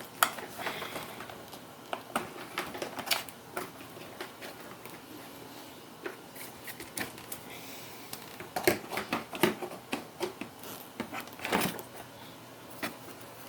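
Irregular clicks, taps and knocks of the Dirt Devil Vision upright vacuum's power cord being unwound from its cord hooks and knocking against the plastic body, busiest near the start and again in the second half.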